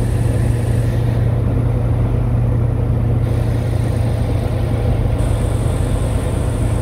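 Steady drone of a light aircraft's piston engine and propeller, heard inside the cockpit, with a strong low hum.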